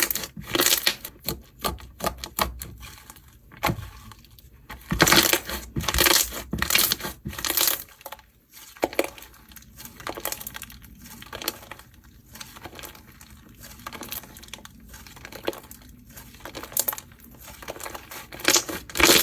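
Blue slime being played with, making irregular crackling and popping clicks, with louder flurries about five to seven seconds in and again near the end.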